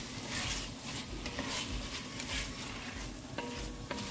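A spoon stirring and scraping through canned red beans in a pot over sizzling oil and seasoning, with about two scraping strokes a second.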